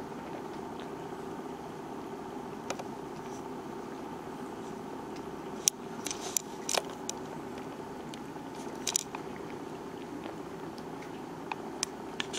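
Black cat grooming herself close to the microphone: wet licking and clicking sounds from her tongue and mouth, coming in short clusters around the middle and near the end, over a steady low hum.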